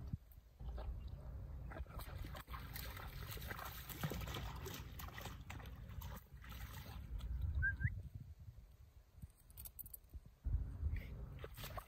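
A Boerboel splashing and sloshing through shallow puddle water in grass, its paws and muzzle in the water. Wind rumbles on the microphone in gusts, and there is one short rising chirp about two-thirds of the way through.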